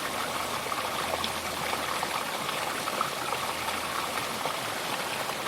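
Mountain brook flowing, a steady rush of running water with small babbling splashes.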